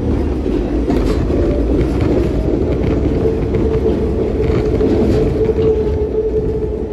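New York City subway N train running at speed, heard from inside the car: a steady rumble of wheels on track, with a steady hum joining in about three seconds in.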